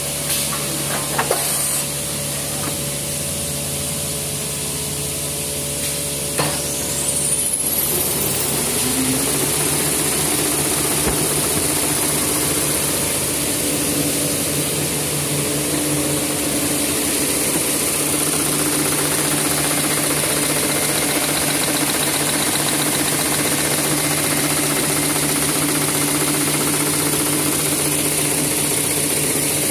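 Maxi roll paper rewinding machine running with a steady mechanical hum, several constant tones and a high hiss. About seven seconds in, a whine rises sharply and the machine runs a little louder from then on.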